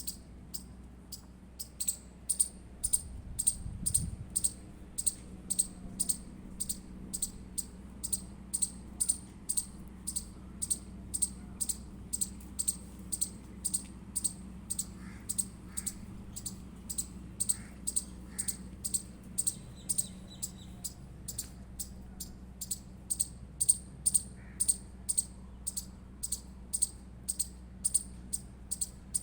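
Indian palm squirrel giving its repeated high-pitched chirping call, short sharp chips at an even pace of about two a second.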